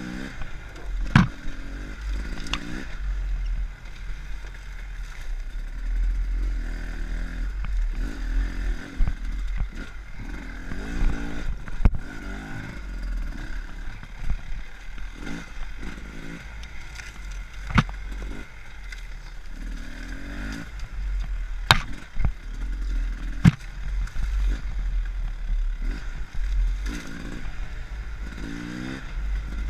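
Enduro dirt bike engine running on rough trail, its revs rising and falling in repeated bursts on and off the throttle, with a steady low rumble. About half a dozen sharp knocks and clatters, such as the chassis hitting bumps or stones striking, cut through it.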